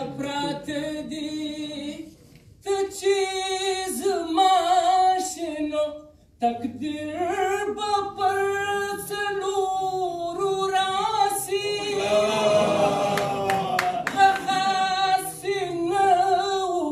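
A single voice singing unaccompanied, holding long, sliding notes in phrases with short breaths between them. A few brief clicks can be heard about two-thirds of the way through.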